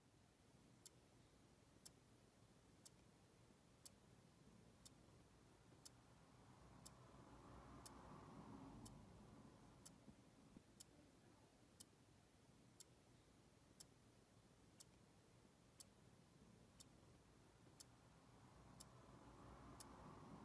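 Clock ticking, one sharp tick about every second, over a faint low background hum that swells twice, around the middle and near the end.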